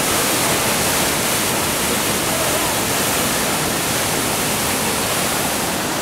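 A river in full flood rushing through rapids and falls: muddy floodwater making a loud, steady, even rush.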